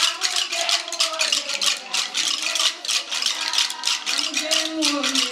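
Fast, steady rhythm of wooden sticks knocked together and hands clapping by a group of seated women, with their voices singing long held notes underneath.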